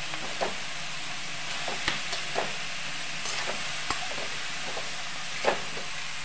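Vegetables sizzling in a metal kadhai while a metal spatula stirs them, with scattered scrapes and clinks of the spatula against the pan. The loudest clink comes about five and a half seconds in.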